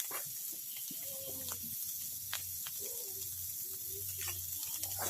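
A cooking pan sizzling with a steady faint hiss, with a few small clicks and faint voices in the background.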